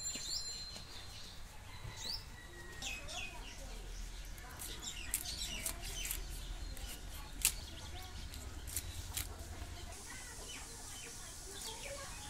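A knife scraping the scales off a whole fish, heard as a string of short, sharp scrapes and clicks, the loudest about halfway through. Birds chirp and call in the background.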